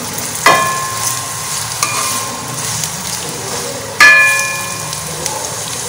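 Sliced onions sizzling steadily in hot oil in a wok while being stirred with a spatula. The utensil strikes the pan sharply twice, about half a second in and again at four seconds, each time with a brief ringing clang, and taps it lightly once near two seconds.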